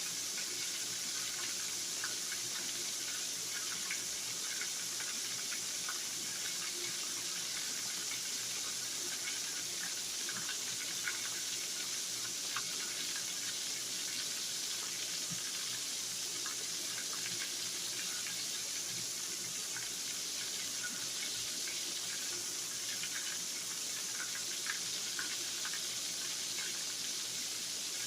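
Floured liver frying in hot oil in a pan: a steady sizzle with small pops and crackles.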